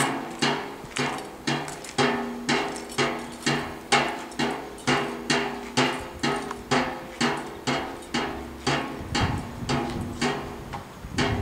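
Steady, evenly spaced sharp strikes, a little over two a second, each with a short ringing tone. A low rumble joins about nine seconds in.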